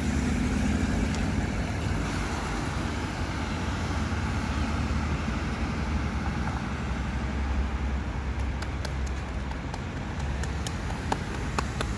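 Steady city road traffic: a continuous low rumble and tyre hiss of cars passing on a busy roundabout, with a string of light clicks in the last few seconds.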